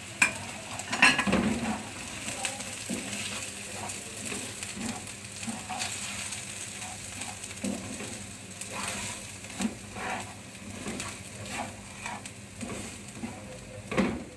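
Onions, garlic cloves and red chilli sizzling in hot oil in a frying pan, with a spatula scraping and knocking against the pan in repeated stirring strokes. A couple of louder knocks come about a second in and near the end.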